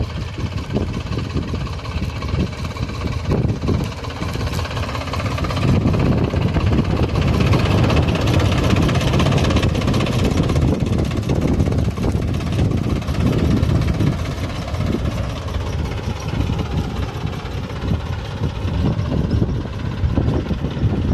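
John Deere 5104 tractor's three-cylinder diesel engine running steadily under load as it pulls a seed drill rigged as a tine weeder through the crop rows. It grows louder about five seconds in and eases off again later.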